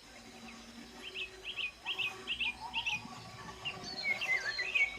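Small birds chirping: a quick series of short, repeated chirps about two to three a second, followed by varied, sliding calls near the end.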